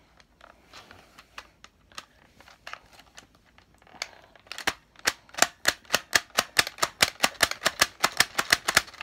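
Plastic parts of a Nerf Modulus blaster clicking as it is handled: a few faint clicks, then, about four and a half seconds in, a rapid, even run of sharp clicks at about five a second.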